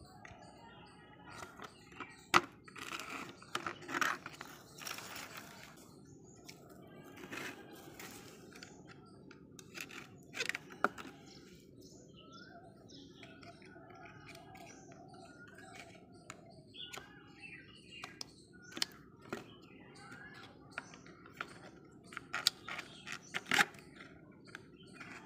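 Hard plastic toy truck parts clicking and knocking as they are handled and fitted together, a few sharp knocks standing out. Birds chirp in the background.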